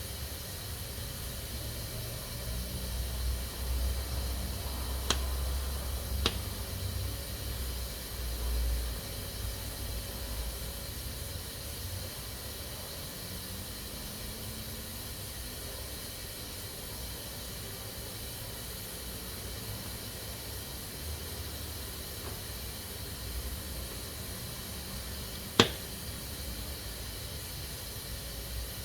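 Pressure cooker venting steam in a steady high hiss. A few sharp clicks sound over it, the loudest near the end, with a low rumble during the first third.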